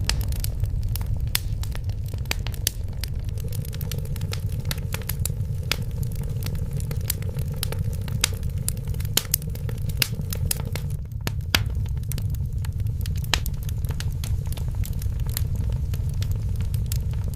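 Wood fire crackling in a fireplace: frequent sharp pops and snaps, irregularly spaced, over a steady low rumble of the burning.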